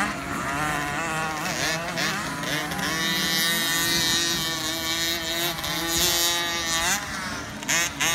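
Several 50cc two-stroke motocross bikes racing, their high-pitched engines overlapping and rising and falling in pitch as the riders open and close the throttle.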